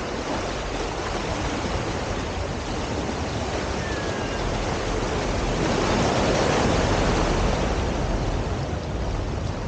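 Ocean surf washing onto a sandy beach, a steady rush that swells louder about six seconds in as a wave breaks, then eases.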